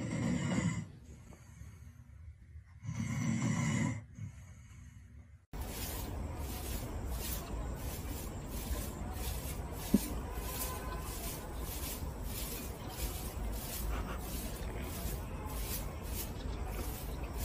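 A sleeping dog snoring: two long snores about three seconds apart. About five seconds in the sound cuts to a steady noisy background with a regular beat.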